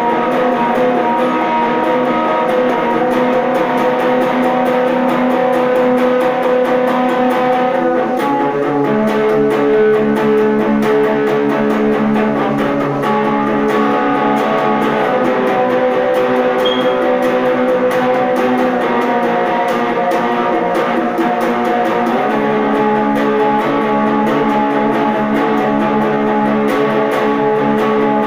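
Electric guitar being played: long, ringing chords that change to new notes about eight seconds in and again about twenty-two seconds in.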